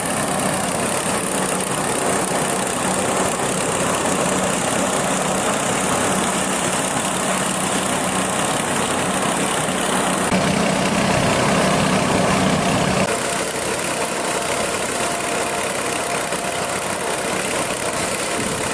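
A small engine running steadily, its note shifting slightly about 13 seconds in.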